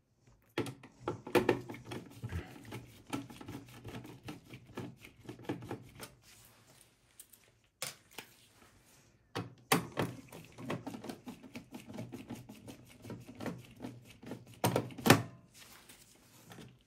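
Phillips screwdriver backing out motherboard screws in a steel PC chassis: rapid small metallic clicks and scraping, in two stretches with a short lull between, and a sharp click, the loudest, near the end.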